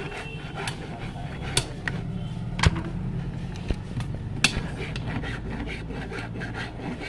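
Metalwork on a steel battery-plate comb jig: a steady low rumble with a few sharp metallic taps, the loudest about a third of the way in and just past the middle.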